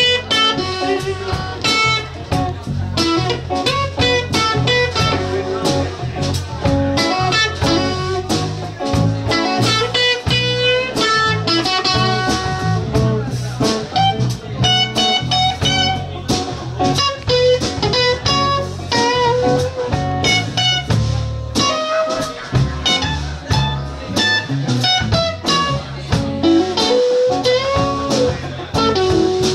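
Live blues band playing: electric guitar picking out single-note lines with bent notes over a drum kit and a low rhythm part.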